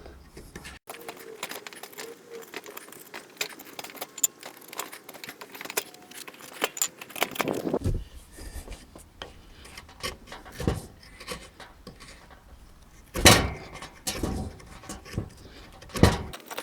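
Steel spoon-carving gouge shaving out the bowl of a green oak spoon in short, scraping cuts, with many small clicks and a few louder knocks, the loudest about two-thirds of the way in.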